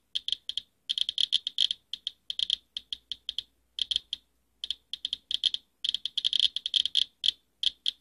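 RadAlert Inspector Geiger counter clicking fast and irregularly, in uneven clusters with short gaps. It is counting radiation from a dirty space-heater air filter at about 545 to 580 counts per minute, a reading far above normal background.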